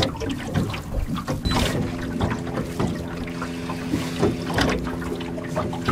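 Water slapping against a small aluminium boat's hull, with scattered short knocks. About two seconds in, background music of held chords comes in.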